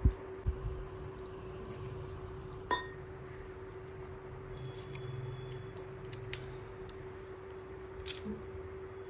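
A foil tablet packet being torn and peeled open by hand, giving faint crinkling and scattered small clicks. A knock comes right at the start, and a steady low hum runs underneath.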